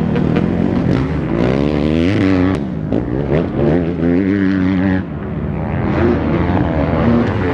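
Motocross dirt bike engines revving on the track, the engine note climbing and falling with throttle and gear changes. Several engine notes overlap, and it dips for a moment about five seconds in.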